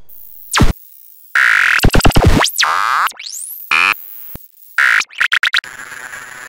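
Synthesized logo-animation sound effects: pitch sweeps falling and rising, loud noisy stretches chopped into rapid digital glitch stutters, and a short hiss that cuts off suddenly at the end.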